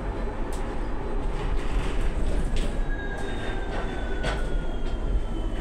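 Passenger-cabin sound of a Solaris Urbino 18 IV Electric articulated bus on the move: a steady low rumble with short interior rattles. About halfway through, the electric drive's whine comes in and slowly falls in pitch as the bus slows.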